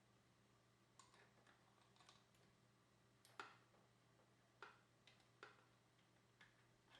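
Near silence, broken by about eight faint, irregular clicks and light knocks of small hard parts being handled, such as headset cups and press-tool pieces. The loudest knock comes a little past three seconds in.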